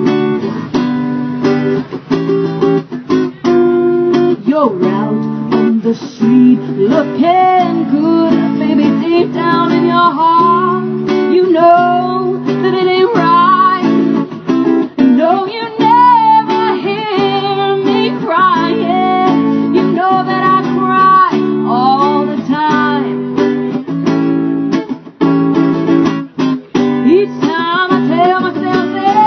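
Acoustic guitar strummed in a steady rhythm, with a singer's voice carrying the melody over it from about four seconds in.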